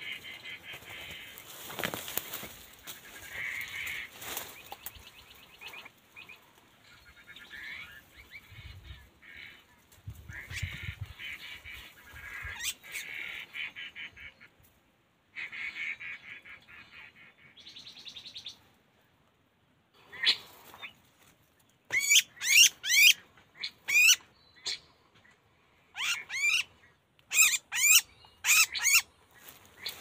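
A loud series of sharp, sweeping bird-like whistled calls in quick clusters through the second half. Before them comes a busier, quieter chatter of high calls with some rustling in the brush.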